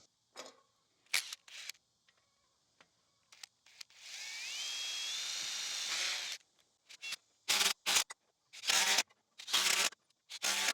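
Power drill pre-drilling into hard oak: a few clicks, then a two-second run with a rising whine that levels off, then four short bursts of drilling near the end.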